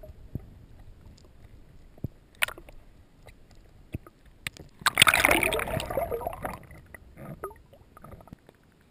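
Water gurgling and sloshing, picked up by a camera underwater, with scattered clicks and a louder stretch about five seconds in.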